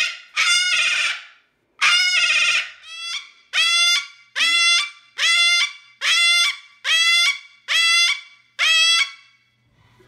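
Cockatoo screaming over and over: about a dozen loud, harsh screams, each under a second long, with short gaps between them.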